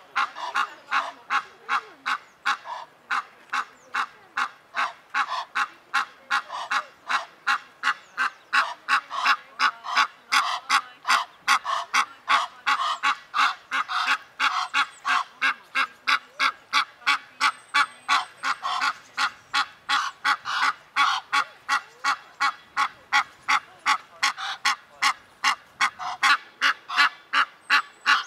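Egyptian goose honking over and over in a steady, harsh, rhythmic run of about three calls a second, without a break.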